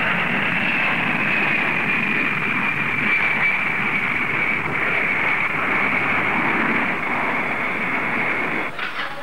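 Jet airliner engines running: a steady rush of engine noise with a thin high whine that slowly drops in pitch. The sound changes and dips near the end.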